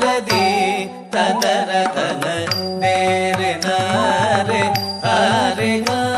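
Carnatic music for a tillana in raga Nattabhairavi, adi talam: a gliding melodic line over a steady pattern of drum strokes, with a brief dip in loudness about a second in.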